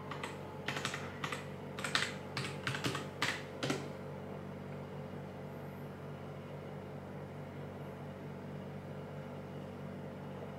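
Typing on a computer keyboard: about a dozen quick keystrokes in uneven runs, entering a Wi-Fi password. They stop about four seconds in, leaving a steady low hum.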